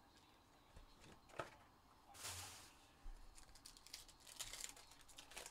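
Faint, scattered light clicks and taps, with a short crinkling rustle a little over two seconds in and a run of quick clicks in the second half.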